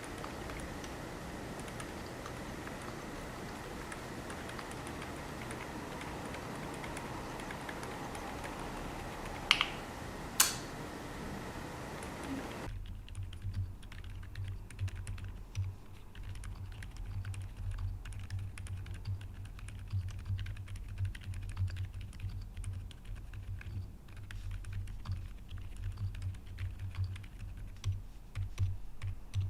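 Typing on a Qwertykeys QK75N keyboard with Akko Fairy silent linear switches, aluminium plate, full foam and gasket mount: a steady stream of muted, low-pitched thocks with no click. For the first dozen seconds the typing comes through a hissy camera microphone, with two sharper clacks around ten seconds in; then the sound turns suddenly clean, and the keystrokes become deep, soft thuds.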